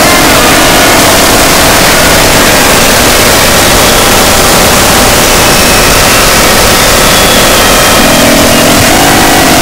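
Harsh noise music: a dense, distorted wall of electronic noise at a constant, very loud level, with faint held tones shifting up and down in pitch beneath it.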